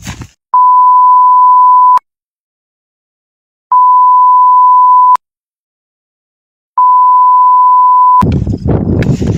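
Three long electronic beeps, all on the same steady pitch, each lasting about a second and a half, with dead silence between them.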